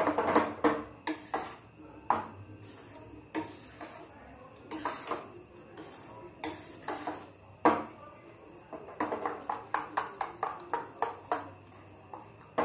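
A metal spoon beating thick cream and cold water in a stainless steel bowl, knocking and scraping against the side in irregular strokes that come quicker near the end. The cream is being churned into butter.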